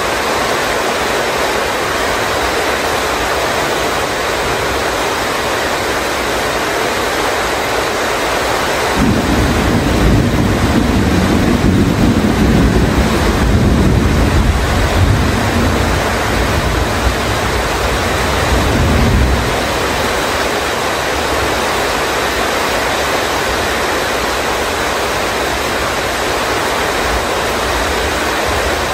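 Heavy rain pouring steadily. About a third of the way in, a long low rumble of thunder rolls in over it and dies away after about ten seconds.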